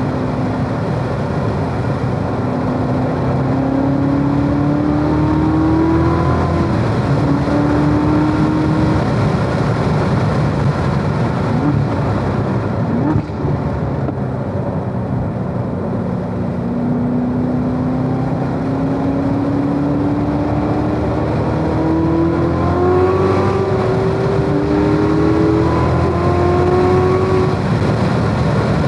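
2017 Corvette Z06's supercharged 6.2-litre LT4 V8 at full throttle around a race track, heard from inside the cabin over steady tyre and road noise. The engine note climbs in pitch again and again, eases off for a slow corner about halfway through, then pulls up through the gears once more.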